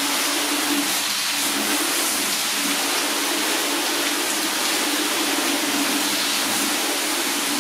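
Garden hose spraying a firm jet of water onto a car's bonnet, steady and unbroken.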